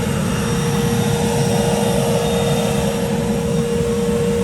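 Gas-fired foundry furnace burning with its burner blown by a vacuum: a loud, steady roar of flame and forced air with a constant whine from the vacuum motor.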